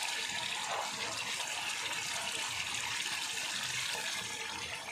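Thick masala gravy sizzling and bubbling steadily in a wok over a gas flame.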